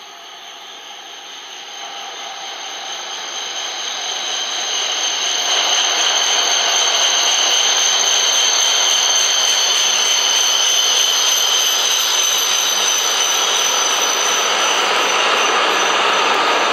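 An H5 series shinkansen train pulling into the station, slowing as it comes alongside the platform. Its rushing noise swells over the first six seconds and then holds steady, with a high, steady whine on top.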